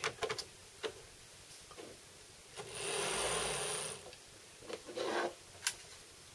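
Small electric motor and gear train of an HO-scale model diesel locomotive, shell off, whirring for about a second and a half in the middle, with a thin high whine. A few light clicks come first as the locomotive is set on the rails.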